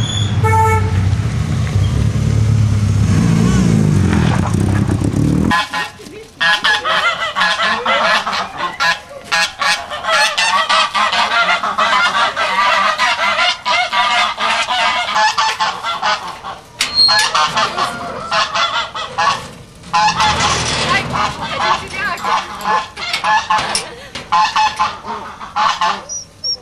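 A low rumble for the first five seconds or so, then a flock of domestic geese honking continuously, many calls overlapping.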